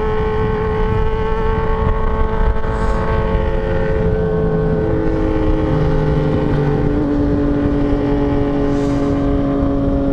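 Motorcycle engine running steadily at highway cruising speed, heard from the rider's position over heavy wind rush on the microphone. About halfway through, the engine note drops to a lower pitch in a couple of steps as the throttle eases.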